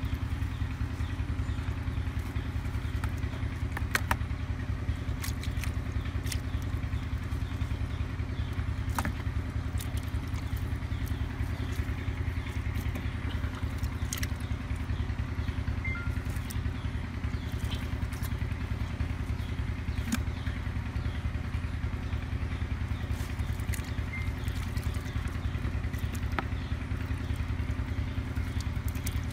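A small engine running steadily with a low drone, and scattered light clicks.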